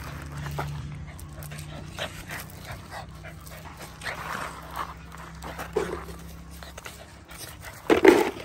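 Boxer puppy panting, with scattered small clicks and one short, loud sound near the end.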